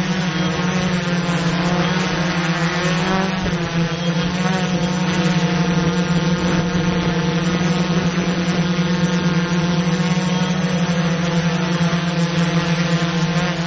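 Small quadcopter drone's propellers buzzing steadily, with a strong low hum and fainter higher tones that waver a little in pitch.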